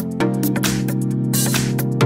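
Background music with held chords over a steady beat of light ticks.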